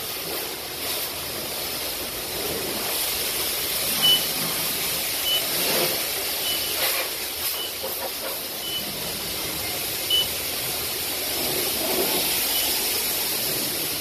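Self-serve car wash pressure washer wand spraying water onto a car, a steady hiss. From about four seconds in, short high beeps sound roughly once a second.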